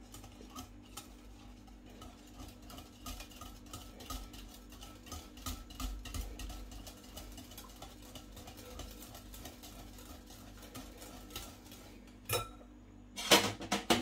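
Stainless-steel wire whisk beating yogurt thinned with warm soup in a glass bowl: a quick, even run of faint ticks as the wires hit the glass. Near the end come a few loud clinks as the whisk is knocked against the bowl and set down.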